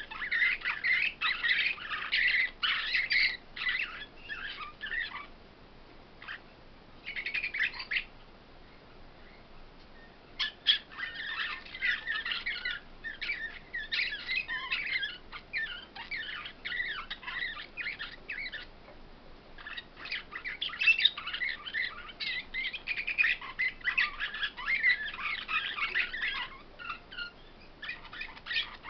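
Caged songbirds singing long, fast chirping phrases with short pauses between them.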